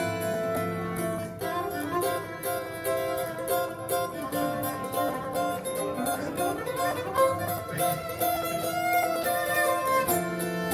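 Recorded string music with plucked, guitar-like notes and some bowed violin, played back over Hartley hi-fi loudspeakers in a demo room.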